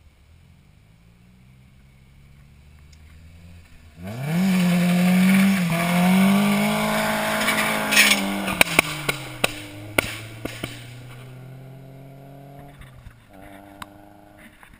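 Nissan 240SX drifting past close by: a faint approach, then about four seconds in the engine is suddenly loud, held at high revs with the tyres squealing through the slide. Its note then falls away as it drives off, with scattered sharp clicks, and a second engine is heard more faintly near the end.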